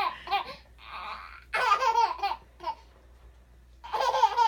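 A baby laughing in three bursts, the pitch bending up and down, with a short breathy sound between the first two.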